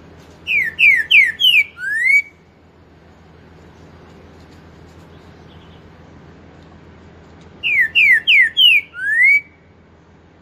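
Green-winged saltator (trinca-ferro) singing its four-note song twice, about seven seconds apart. Each phrase is four quick falling whistles followed by one longer rising note.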